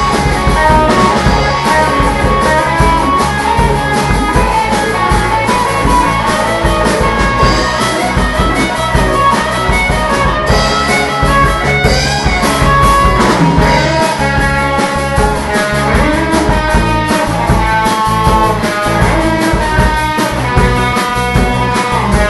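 Rock song played on guitar and drum kit, with a steady beat.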